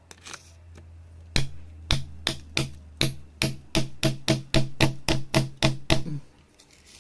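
A fast, regular series of hammer strikes, about three a second, each ending in a short ringing tone, stopping about a second before the end.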